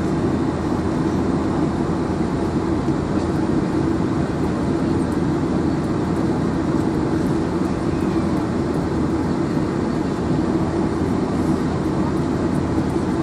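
Steady cabin noise inside a Boeing 747-400 standing on the ground: the engines idling together with the air-conditioning, heard as an even, unchanging drone.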